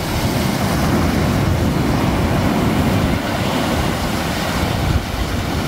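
Sea surf breaking and washing up a sandy beach: a steady rushing noise with a heavy low rumble underneath.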